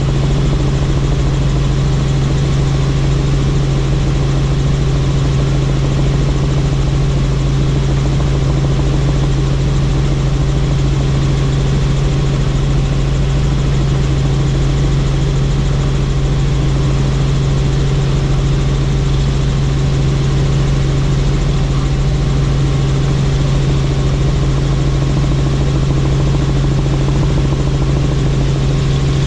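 Helicopter in flight: a loud, steady drone of engine and rotors with a strong low hum that does not change.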